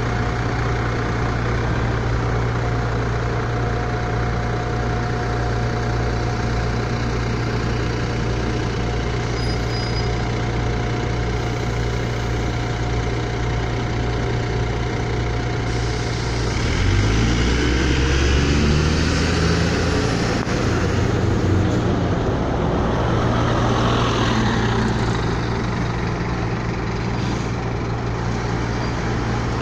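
Scania OmniLink single-deck bus's diesel engine idling steadily, then pulling away about 17 seconds in, the revs rising in steps as it gathers speed before settling back to a steady hum.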